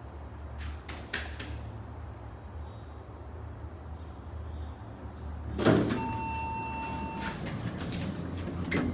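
Hydraulic elevator's sliding doors working, with a clunk a little past halfway and then a single steady electronic tone of just over a second, over a low hum, with a few clicks before and after.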